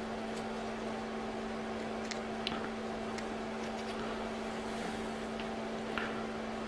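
Steady machine hum with several fixed tones, and a few faint, light clicks from small parts being handled against a plastic pump housing.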